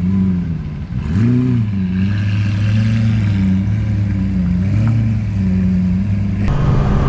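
A vehicle engine running at a steady low pitch, revved briefly about a second in, with its tone changing near the end.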